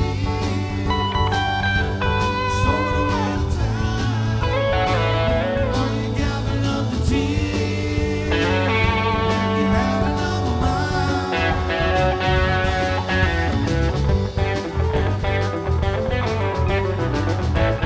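Live rock band playing: a Stratocaster-style electric guitar to the fore, with bending high notes, over drums and keyboards.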